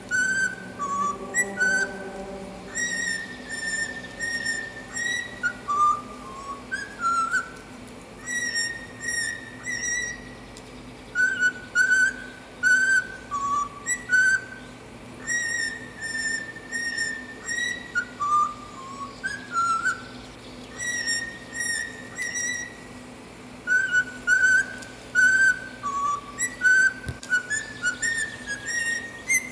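A whistled melody of short clipped notes and longer held ones, the same phrase coming round again several times. It is a cockatiel-style whistled tune.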